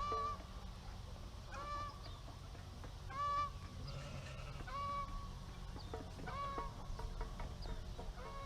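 A farm bird giving short, honking calls, about six in all, one roughly every second and a half, over a low steady background hum.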